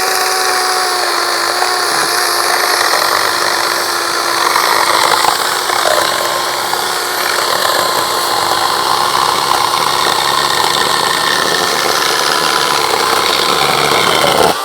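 DeWalt 20V Max XR brushless cordless chainsaw running at full speed and cutting through a board. The motor's whine holds steady with a slight dip under load, and the saw is released at the very end, winding down.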